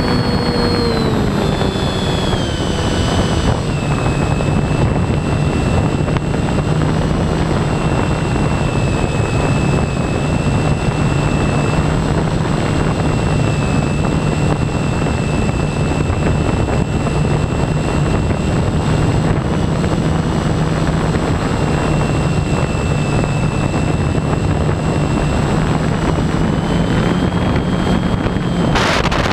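RC airplane's motor and propeller heard from a camera mounted on the plane in flight: a steady hum with a high whine over a rush of wind. The pitch drops over the first few seconds, holds steady, then rises a little near the end.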